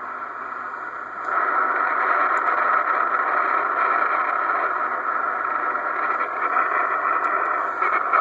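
Steady hiss of band noise from a 2970 transceiver's receiver through its speaker, the narrow-band static of an empty or off-frequency channel; it gets louder about a second in.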